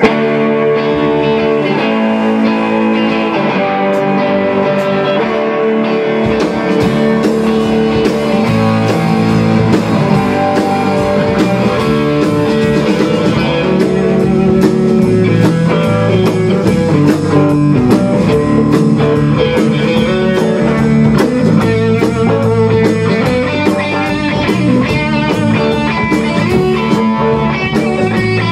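Live rock band playing: two electric guitars, a Les Paul-style and a Telecaster-style, strumming chords. The drum kit comes in about six seconds in and keeps a steady beat with cymbals.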